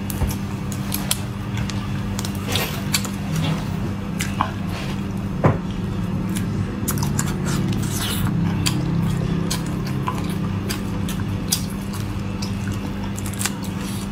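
Close, wet squelching of a soy-marinated shrimp being peeled by hand and chewed, with many small crackling clicks from the thin shell. A steady low hum sits underneath.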